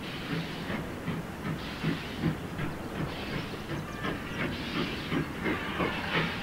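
Steam locomotive hauling a train, its exhaust chuffing in a steady rhythm of hissing beats over a low rumble.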